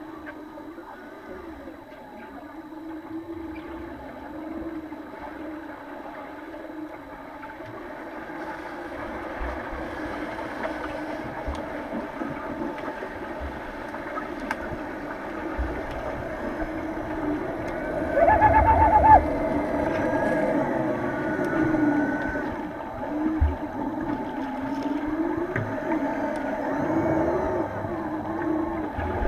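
Underwater sound of a swimming pool picked up by a submerged camera during underwater rugby play: a warbling, wavering hum with scattered knocks and bubbling. About two-thirds of the way through, a loud steady tone sounds for about a second.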